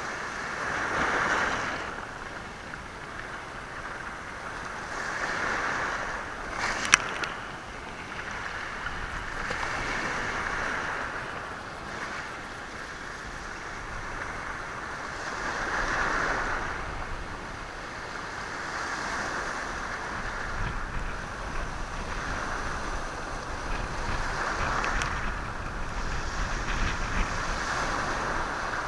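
Sea waves washing over a stony shore, the rush of water and stones swelling and ebbing every four to six seconds. A single sharp click about seven seconds in, and wind rumbling on the microphone in the second half.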